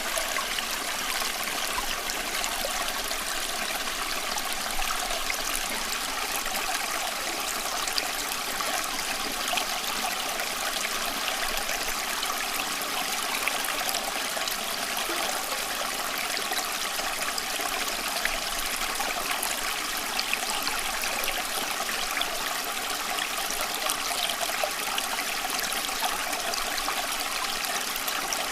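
Flowing water, a steady stream or brook with fine trickling and splashing, unchanging throughout.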